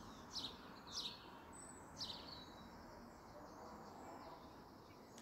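A small bird chirping: three short, high, falling notes in the first two seconds, over faint outdoor background noise.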